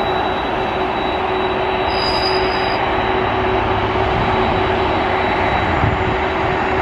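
Jet airliner engines running loud and steady, with a constant high whine over a broad rush and a low hum; a brief higher tone sounds about two seconds in.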